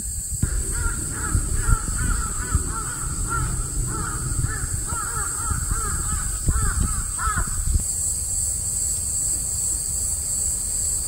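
Crows cawing over and over in a long run of short calls, which stop about eight seconds in.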